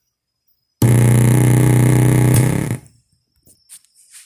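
Oneal powered speaker box blaring a loud steady buzz with hiss from its loudspeaker for about two seconds, starting about a second in and cutting off abruptly. This is the fault noise of its TDA2030A bridge amplifier running without the small polyester capacitor beside the output IC. A few faint clicks follow near the end.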